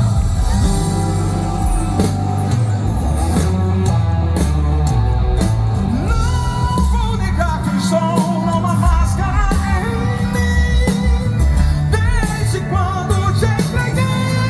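Live gospel band music with singing over bass, guitar and drums; a wavering sung melody comes in about six seconds in.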